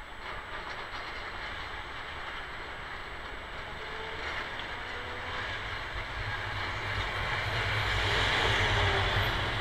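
Vintage Milan Class 1500 "Ventotto" tram approaching and rolling past on its rails. Its running noise grows louder from about six seconds in and is loudest near the end.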